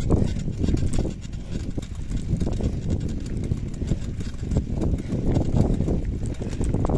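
Mountain bike riding over a loose gravel and stone trail: tyres crunching and the bike rattling and knocking over the stones, with a low rumble of wind on the microphone. The sound is a little quieter through the middle.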